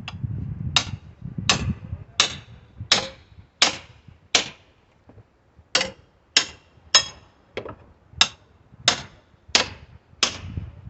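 Mini sledgehammer striking over and over while wood pallet boards are knocked apart, about one and a half sharp blows a second. There is a short pause near the middle.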